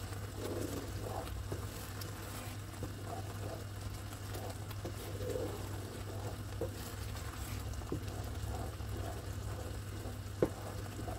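Thick peanut-butter satay sauce bubbling in a wok on medium heat, with soft irregular plops as it reduces, over a steady low hum. A wooden spatula stirs it now and then, with one sharp click about ten and a half seconds in.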